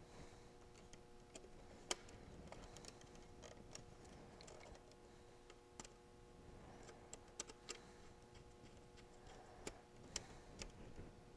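Faint, scattered ticks and clicks of a small screwdriver and thermostat wires against the plastic screw-terminal block of a thermostat base as the wires are pushed in and the terminals are worked. The sharpest click comes about two seconds in, and a few more come close together later, over a faint steady hum.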